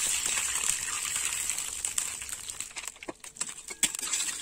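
Hot tempering oil with mustard seeds, green chillies and curry leaves hissing as water is poured into the pan. The sizzle fades steadily, with scattered pops and clicks in the second half.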